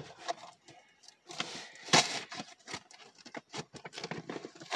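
Irregular clicks, knocks and rustling of things being handled, loudest about two seconds in.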